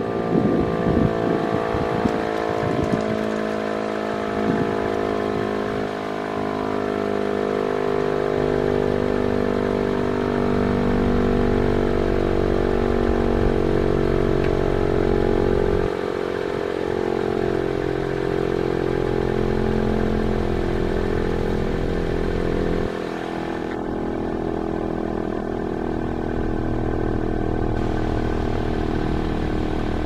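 Federal Signal STL-10 three-phase single-tone chopper siren sounding its attack test signal: a loud, steady tone with small dips in level a few times.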